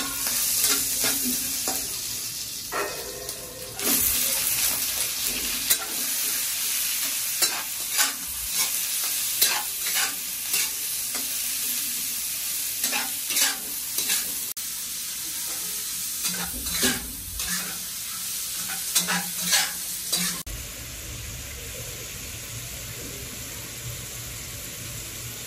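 Ginger, garlic and then chicken pieces sizzling in hot oil in a stainless-steel wok, stir-fried with a metal spatula that scrapes and clacks against the pan many times. The sizzling cuts off abruptly about twenty seconds in, leaving a quieter low hum.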